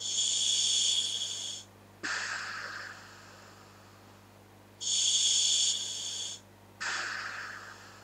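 A person breathing through scuba regulators attached to a hooded gas mask. There are two breaths. Each starts with a loud, high hiss of the demand valve on the inhale, lasting over a second, followed by a shorter, lower rush of air on the exhale.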